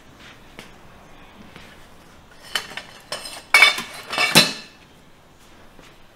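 Steel water-pipe stand and bar of a homemade cable roller clanking as it is set up with a cable reel on it: a handful of sharp metallic knocks with a short ring, the loudest about three and a half and four and a half seconds in.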